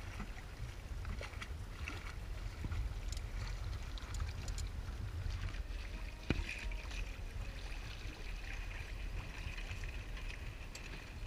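Water splashing and lapping at a small sailing dinghy with wind buffeting the microphone, a steady low rumble under scattered small splashes. A single sharp knock about six seconds in.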